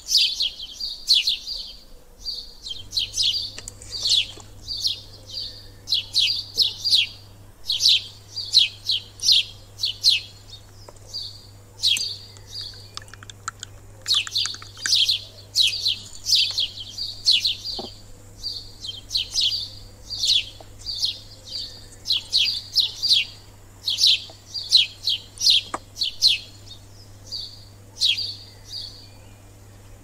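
Small bird chirping in quick, repeated short chirps, each one falling in pitch, with a few brief pauses, over a steady low hum.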